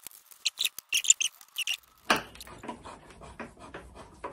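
Hand screwdriver turning a Pozidriv screw through the metal switch box lug into its bracket: a run of short squeaks and scrapes, then a knock about two seconds in followed by quieter scraping.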